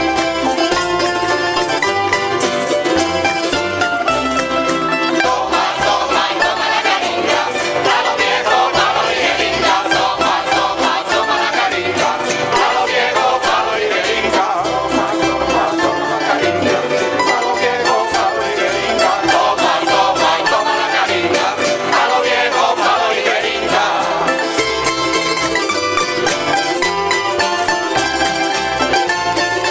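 Background music led by plucked string instruments, playing steadily throughout.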